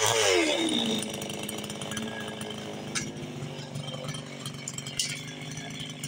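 Two-stroke gas chainsaw dropping off a rev, its pitch falling in the first second, then idling steadily. Two short sharp clicks come about three and five seconds in.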